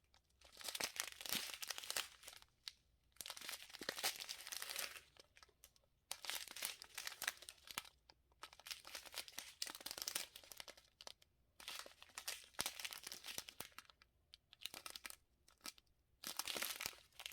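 Small plastic bags of diamond-painting drills crinkling as they are handled and sorted, in bursts of a second or two with short pauses between.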